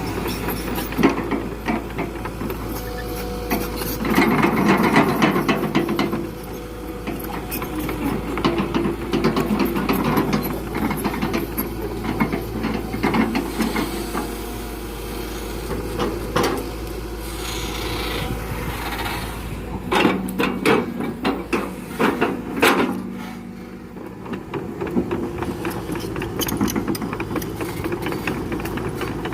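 Excavator engine running while it handles rubberwood logs, the logs scraping and knocking against each other, with a cluster of sharp knocks about two-thirds of the way through.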